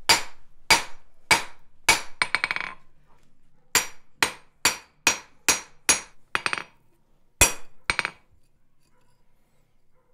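Hand hammer blows on a red-hot steel bar on the anvil, flattening the forged chisel end of a stone drill. The blows come about two a second in short runs with brief pauses. A couple ring on longer, and the hammering stops near the end.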